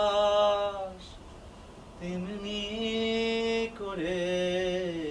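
A singer's voice holding three long, slow notes with short breaks between them, part of a slow Bengali song.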